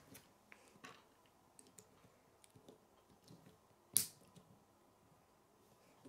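K'nex plastic rods and connectors clicking as they are pressed and snapped together by hand, with a scatter of light clicks and one loud sharp snap about four seconds in.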